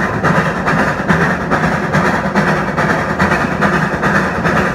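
1901 NA-class 2-6-2 tank steam locomotive No. 6 working under steam at speed, its exhaust chuffing in a fast, even rhythm.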